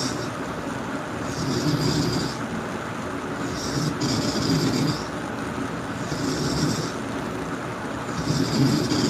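A sleeping person snoring loudly, four snores in a row, about one every two seconds, each with a hiss of breath.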